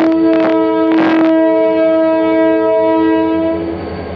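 Diesel locomotive air horn sounding one long, steady chord that stops near the end, with two short rushes of noise near the start and about a second in. It is the departure signal, given just before the train leaves the station.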